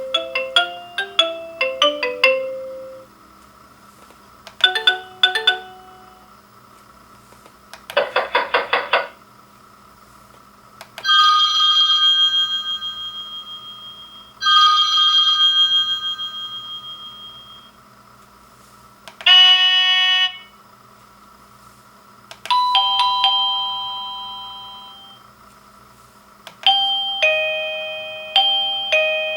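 Avantek D-3B wireless doorbell receiver playing its electronic chime melodies one after another. About eight short tunes go by, several of them ding-dong chimes whose notes ring and fade, with pauses of a second or two between them.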